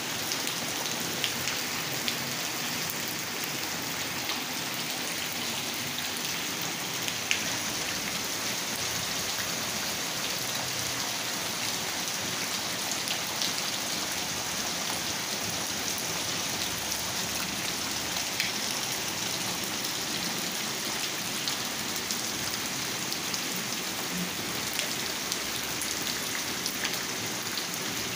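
Heavy rain falling steadily onto standing water on flooded ground, with a few single louder drop hits close by.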